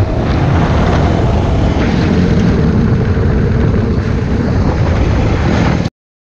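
Honda CRF250R's single-cylinder four-stroke engine running while the bike is ridden, mixed with wind rushing over the microphone. The sound cuts off suddenly near the end.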